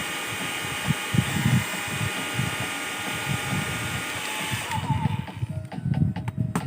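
Small electric tool running steadily with a loud hiss and a high whine, switched off abruptly about three-quarters of the way through.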